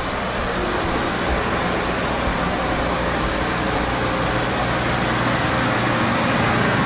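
A steady mechanical hum with an even rushing noise, slowly growing a little louder.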